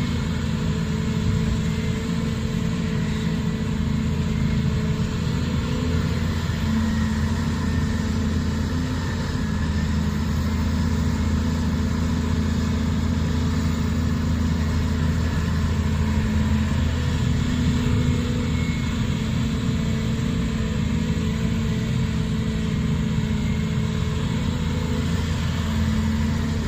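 Steady diesel engine drone from a Volvo crawler excavator working beside a ten-wheel dump truck idling as it is loaded.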